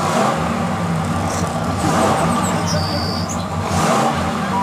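Truck engine running and revving.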